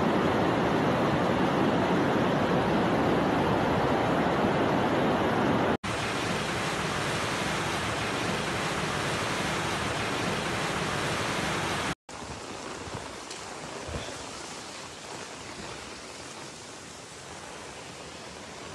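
Rushing floodwater, a steady even rush of noise. It breaks off briefly twice, and after the second break it is much fainter.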